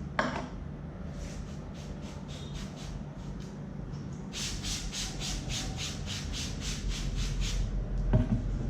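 Hands rubbing and scrubbing through hair and scalp during a head massage, in a steady rhythm of about three to four strokes a second that grows stronger midway. A short harsh squawk near the start is the loudest sound, and a low hum runs underneath.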